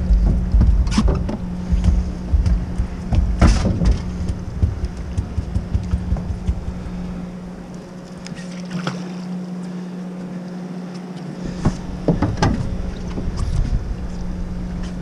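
Steady hum of a fishing boat's idling motor, with wind rumbling on the microphone that drops away for a few seconds in the middle, and a few brief sharp knocks.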